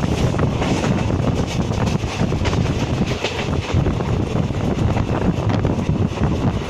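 Wind buffeting the microphone: a steady, heavy rumble that swells and dips in gusts.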